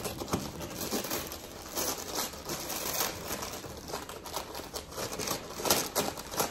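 Brown kraft wrapping paper being torn and crumpled by hand as a gift is unwrapped: irregular crinkling and ripping, loudest near the end.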